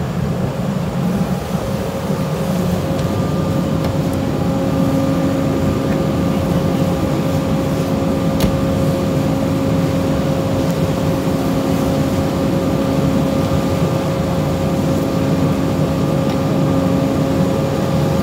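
Fire engine running steadily: a low engine rumble with a steady droning tone that sets in about two and a half seconds in. A single sharp click comes about eight seconds in.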